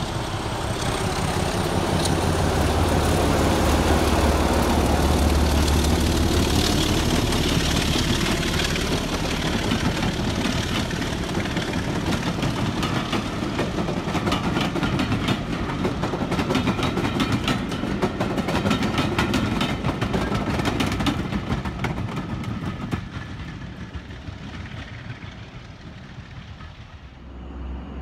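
Class 25 diesel locomotive's Sulzer six-cylinder engine working under power as it passes, its deep rumble loudest in the first several seconds. Then the clatter of the coaches' wheels on the track as the train goes by, fading away in the last few seconds.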